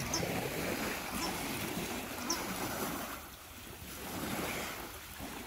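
Small waves washing in and lapping on a seaweed-strewn beach, the wash swelling and easing, with wind buffeting the microphone. Gulls give a few short, faint high calls in the first half.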